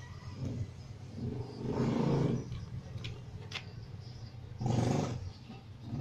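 Rustling and crinkling of a clear plastic sleeve and old paper banknotes being handled. It comes in two louder bursts, about two seconds in and again about five seconds in, with a couple of sharp crackles between them.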